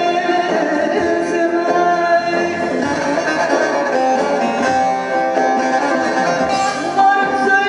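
Turkish folk song played live through a PA: a bağlama's plucked strings over a Korg arranger keyboard, with a woman's singing voice.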